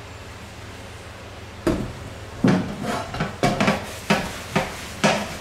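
Dishes, pots and cutlery clattering in a kitchen: a quick, irregular run of sharp knocks and clinks that starts a little under two seconds in, after a quiet moment.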